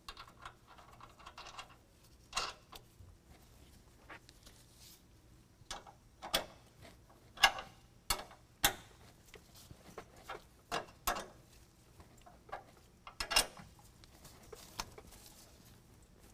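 Scattered metallic clicks and clinks, a few ringing briefly, of a 9/16 wrench and nut hardware against the steel air-bag bracket as serrated flange nuts are threaded onto carriage bolts and tightened.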